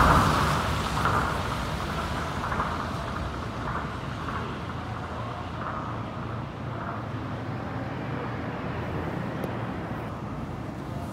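A rubber-tyred Tokyo Monorail train running away along its elevated guideway, its sound fading over the first few seconds into a steady low hum.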